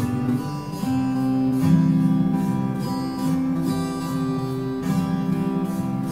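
Background music: strummed acoustic guitar chords, changing about once a second.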